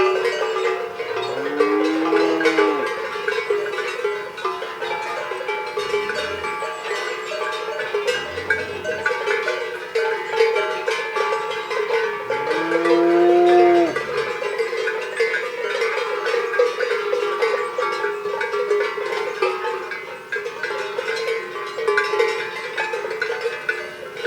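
Many cowbells on a herd of cows clanking continuously in an overlapping jangle. A cow moos about a second in and again, longer and louder, around the middle, with two short low calls between.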